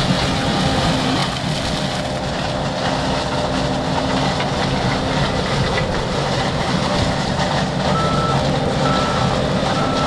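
Tracked John Deere T670i combine harvester running steadily with a low mechanical hum. Near the end a reversing alarm beeps three times, about once a second.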